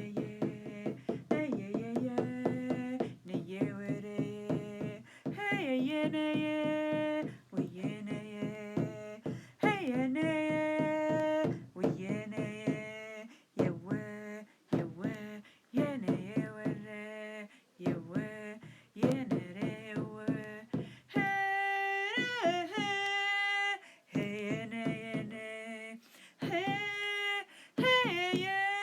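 A woman's voice singing a wordless chant in long held notes that slide between pitches, over a low steady drone, with short sharp taps scattered through it.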